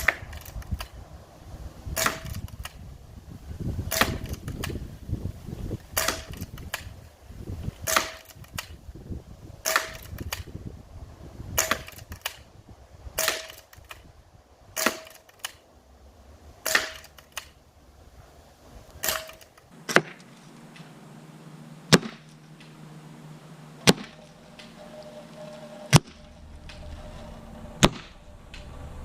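A .22 Seneca Eagle Claw lever-action PCP air rifle firing shot after shot, about one sharp crack every two seconds, around fifteen shots in all.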